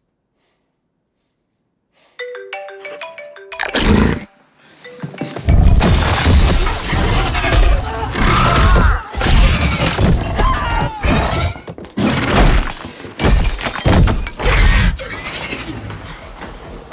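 Film soundtrack: a short run of stepped notes, then a heavy crash, then loud, continuous crashing and breaking with repeated hits under music.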